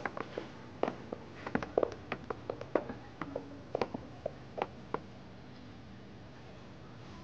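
High-heeled footsteps on a hard shop floor: irregular light clicks and taps, several a second, that die away about five seconds in.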